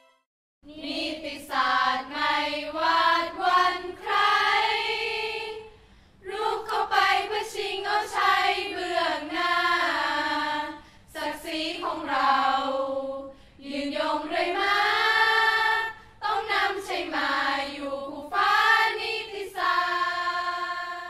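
A choir of young women singing a song in phrases of a few seconds with short breaks between them, unaccompanied.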